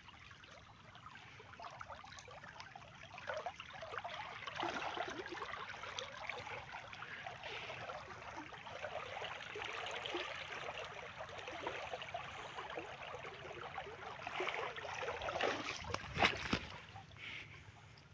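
Irrigation water rushing steadily at full flow along an earthen field channel. Near the end there is one short, sharp knock, the loudest sound.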